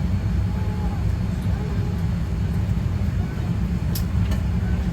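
Steady low rumble of a parked Boeing 787-8 airliner's cabin air and systems at the gate, with faint passenger chatter under it and a couple of small clicks about four seconds in.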